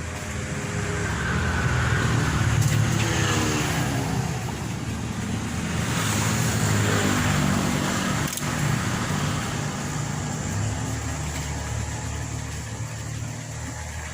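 Motor vehicles passing by, their engine and road noise swelling up and fading twice.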